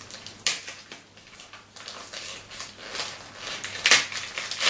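Gift wrapping paper rustling and crinkling by hand as a present is unwrapped, in a few short bursts, the loudest near the end.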